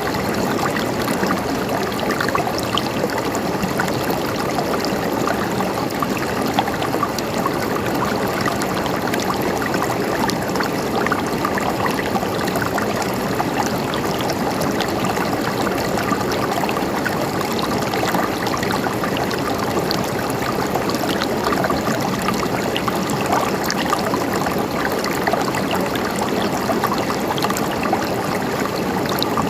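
River water flowing and gurgling over rocks, a steady babbling rush.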